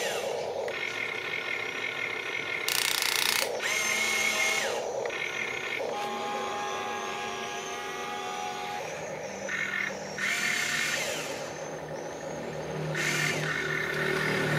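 Small electric motors of an RC excavator whining in repeated short runs as it works its arm and bucket; each run rises in pitch as it starts and falls away as it stops. A short, loud burst of noise comes about three seconds in.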